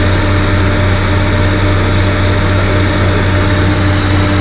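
Drilling rig machinery running with a loud, steady engine drone, a strong low hum and a fixed tone above it.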